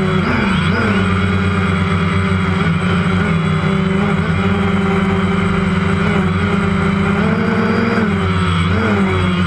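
Electric motors and propellers of a small camera drone, heard from its onboard camera as a loud, steady whine-hum. The pitch rises and falls briefly a few times as the throttle changes, with a longer rise about seven seconds in.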